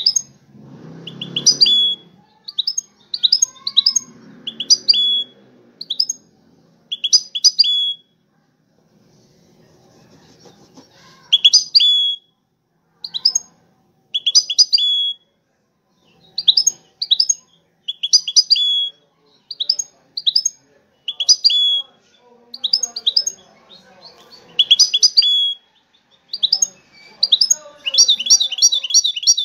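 Caged European goldfinch singing: short bursts of quick twittering chirps, repeated one after another, with a pause of a few seconds about eight seconds in and a faster, denser run of notes near the end.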